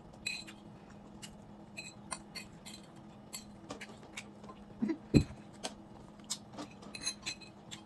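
A metal spoon clinking and scraping against a plate during eating, in many short sharp taps. A louder dull thud comes about five seconds in, over a steady low hum.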